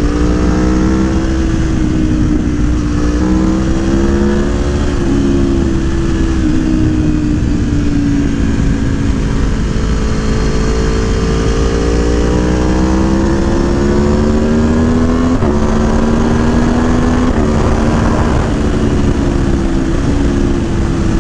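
Aprilia Tuono V4 1100's V4 engine, breathing through a Gabro Stage 3 airbox and ECU flash, running under way. Its pitch slowly rises and falls with the throttle, with a few sudden steps in pitch, over a steady rush of riding wind.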